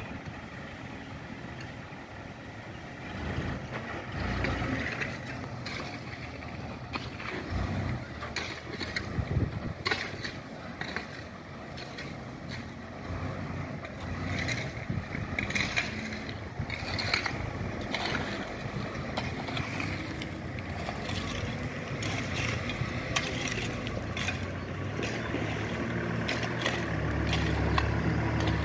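Mitsubishi dump truck's diesel engine running at low speed as the truck manoeuvres, with scattered clanks and knocks; the engine grows louder near the end.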